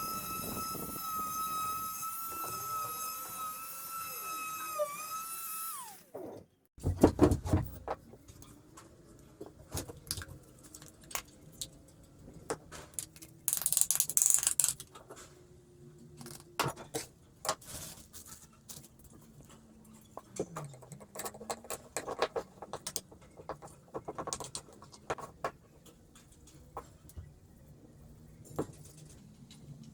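A small power tool's motor whines steadily, dips briefly under load and stops about six seconds in. Scattered knocks and clicks of hand work on wood follow, with a short hiss about halfway through.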